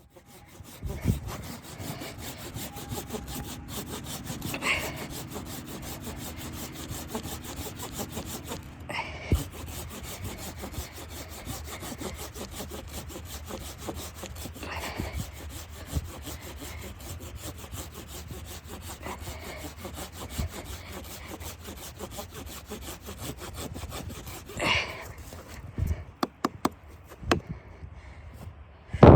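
Saw cutting through wood: a continuous rasping, with a few sharp knocks scattered through it.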